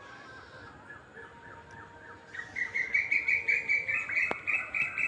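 A songbird calling in a fast, even series of short high chirps, about four a second. The series gets louder a little over two seconds in, after fainter, lower chirps at the start.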